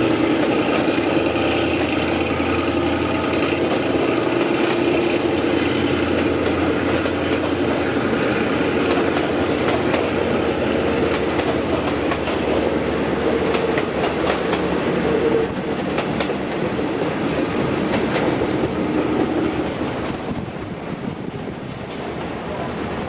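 Train's coaches rolling past on the track, wheels clicking over rail joints, with a squealing tone from the wheels. The sound drops twice in the last third as the train moves away.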